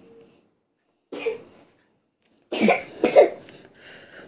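A few short coughing sounds: one about a second in, then a longer run of them a little past halfway.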